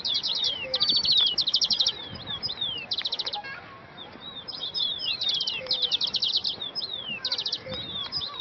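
Several small songbirds chirping together: quick high trills of rapid chirps, broken by short whistles that slide downward, overlapping almost without a break.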